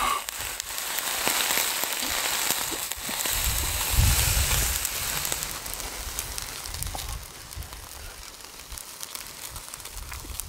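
Beef and french fries sizzling and crackling on a hot barbecue grill as yakiniku sauce is poured over them. The sizzle fades after about seven seconds.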